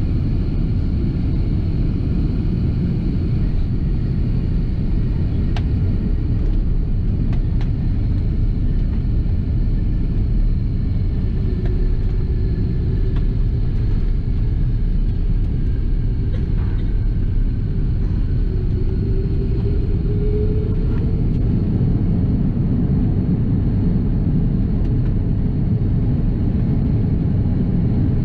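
Steady low rumble of an Airbus A330-300 taxiing after landing, heard from inside the cabin at a window seat. A faint engine whine rises briefly about two-thirds of the way through.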